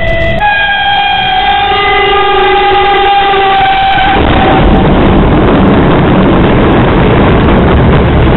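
Train horn sounding a steady chord of several tones for about four seconds, then the loud rushing rumble of the train passing at speed close by.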